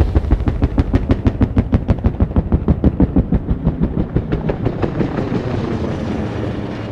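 Agusta Bell AB-212 helicopter's two-bladed main rotor chopping in a rapid, even rhythm that fades away as it recedes.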